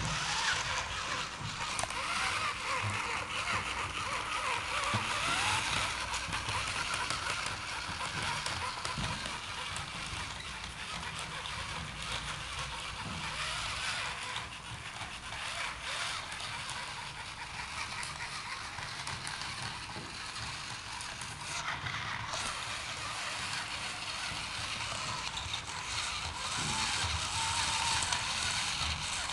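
Small electric gear motors and plastic tracks of a tracked line-following robot whirring steadily as it drives along the line.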